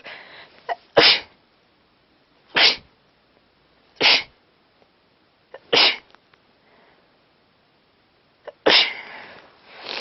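A person with a head cold sneezing over and over: four sharp sneezes about a second and a half apart, then a longer, drawn-out one near the end.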